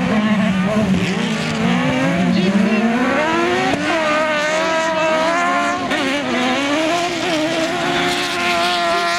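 Engines of several single-seat autocross buggies racing on a dirt track, revving high and rising and falling in pitch as they accelerate and lift through the corners.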